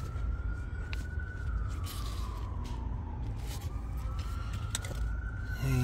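Faint emergency-vehicle siren wailing, its pitch slowly rising, falling and rising again, over a steady low rumble.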